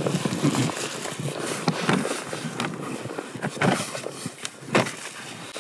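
Footsteps crunching in snow at an uneven pace, with clothing rustling.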